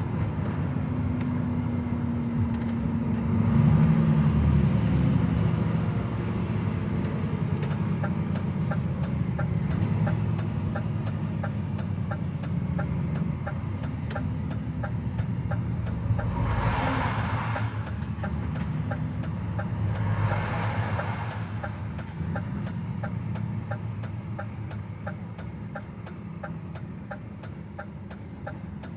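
DAF XF truck's diesel engine running in the cab, swelling a few seconds in and easing off towards the end as the truck slows. From about a third of the way in, the turn-signal indicator ticks evenly. Two brief rushes of noise come midway through.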